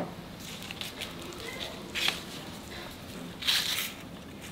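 A knife cutting soft ropes of fuchka dough into small pieces on a cloth: a few quiet, short scraping sounds, the clearest about three and a half seconds in.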